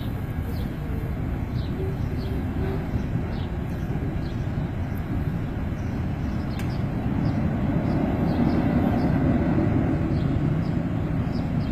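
Steady low rumble of a passing freight train, growing somewhat louder about eight seconds in, with short high chirps scattered over it.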